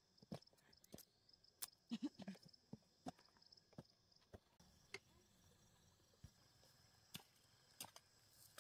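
Near silence outdoors: a faint steady high insect drone that stops about halfway through, with scattered faint small clicks.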